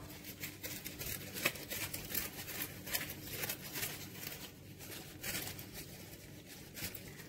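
Raw turmeric root being scraped with a potato-peeling knife: a string of faint, irregular scrapes and clicks as the skin comes off, thinning out toward the end.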